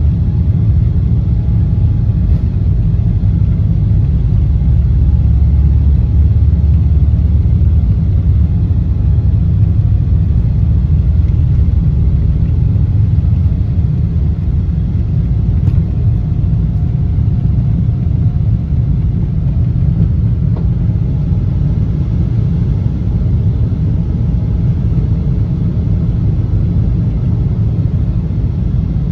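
Boeing 777-300ER's GE90-115B engines at takeoff thrust, heard inside the cabin over the wing during the takeoff roll and initial climb. It is a loud, steady, deep rumble that eases slightly in the second half.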